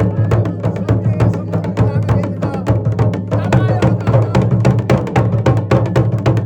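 Garhwali dhol and damau drums played together in a fast, dense, driving rhythm, with a wavering melodic line above.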